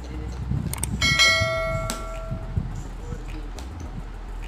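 A bell ding sound effect, the notification bell of a subscribe-button overlay: a couple of quick clicks, then about a second in a single bright chime that rings for about a second and a half and fades.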